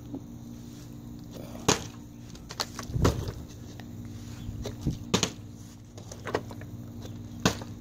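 Scattered knocks and clicks as a plastic water bottle and a phone are handled on a textured patio table, the loudest a dull thump about three seconds in, over a faint steady hum.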